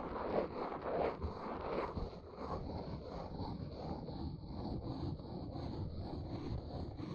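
Close-miked ASMR scratching and rubbing: a dense, irregular run of short scraping strokes, busier and louder in the first two seconds.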